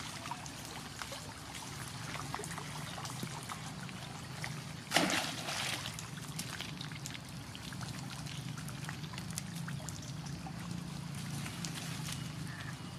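Muddy, fast-flowing stream: a steady rush and trickle of running water. A sudden louder burst breaks in about five seconds in, then the flow goes on.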